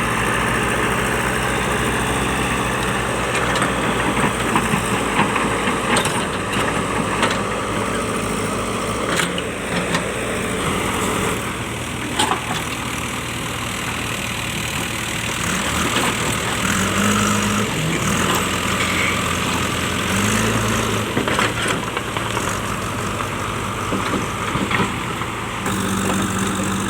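JCB backhoe loader's diesel engine running, its pitch stepping up and down a few times as it takes load, with a few sharp knocks in the first half.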